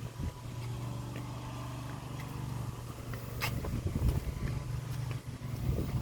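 A steady low mechanical hum, with a faint click about three and a half seconds in.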